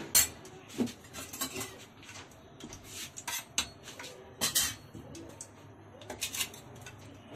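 Metal cookware and utensils clinking and clanking on a gas stove: a run of irregular sharp knocks, the loudest just after the start and again about four and a half seconds in.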